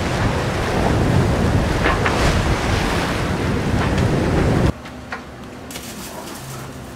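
Wind buffeting the microphone and waves rushing past the hull of a sailboat under sail, with an occasional splash. It cuts off suddenly about two-thirds of the way through, leaving a much quieter cabin background with a few faint knocks.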